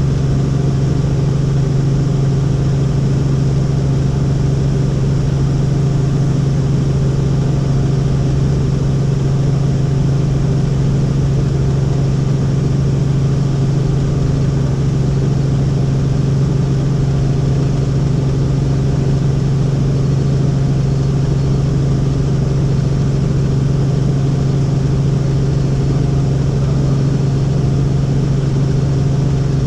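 Helicopter in flight: a steady, unbroken drone with a strong low hum and fainter higher tones above it.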